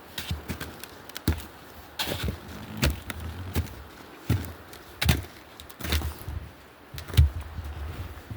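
Footsteps of a person walking on an outdoor trail, a dull thud about every three-quarters of a second.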